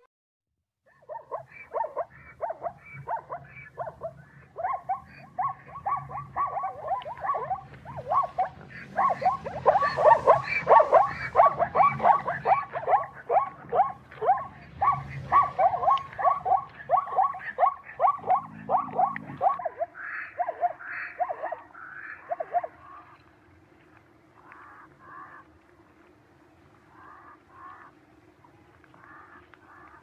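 Zebras calling: a rapid run of repeated high yelping barks, densest and loudest around ten seconds in, thinning to softer scattered calls after about twenty seconds.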